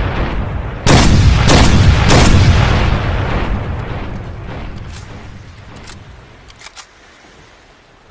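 Norinco NDM-86 semi-automatic sniper rifle firing three shots in quick succession, about half a second apart, each with a long echoing tail that dies away over several seconds. A few faint clicks follow near the end.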